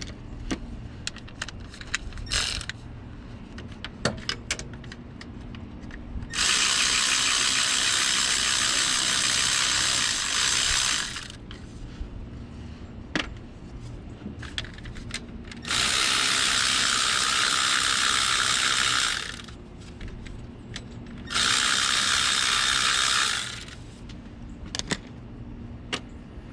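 Ratchet working the starter's 14 mm bolts: scattered single clicks, then three long runs of fast, continuous ratcheting, about 6, 16 and 21 seconds in, each lasting two to five seconds, as the bolts are spun out.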